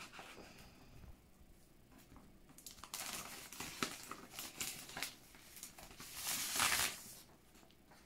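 Sheets of paper rustling and crinkling as they are handled and unfolded, in a run of rustles starting about three seconds in and loudest a little past two-thirds of the way through.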